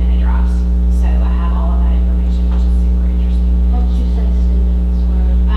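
Loud, steady electrical mains hum with a stack of low buzzing overtones, with a woman's faint speech underneath it.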